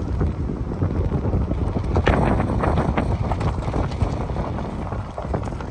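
Wind buffeting the microphone: a steady low rumble with crackling, louder for a second or so about two seconds in.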